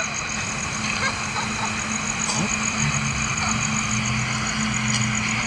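A steady low engine hum, like a vehicle idling, with a rapid, even high-pitched pulsing above it.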